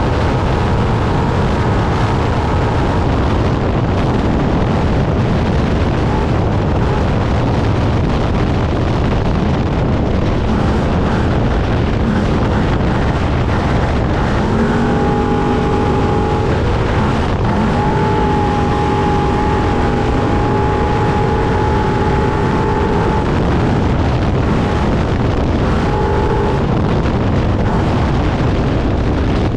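Trophy truck running at race speed off-road, heard from the cab: loud, constant engine and drivetrain noise mixed with rushing wind and terrain noise. A steady pitched tone rises out of the din for several seconds past the middle and once more briefly near the end.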